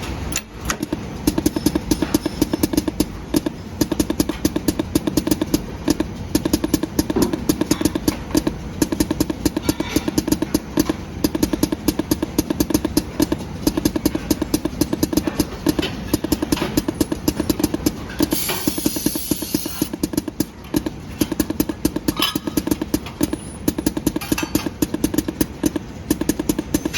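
Soft PVC dispensing machine running with a fast, steady mechanical clatter. About eighteen seconds in there is a short burst of air hiss.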